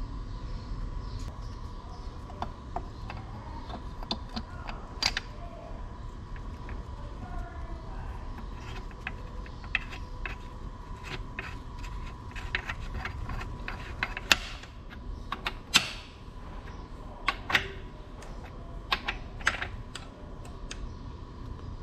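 Scattered metal-on-metal clicks and clinks from hands and a hand tool working on the crankshaft and bearing caps of a John Deere 4010 engine block, with a cluster of louder sharp clinks between about 14 and 20 seconds in. Beneath them runs a steady low hum.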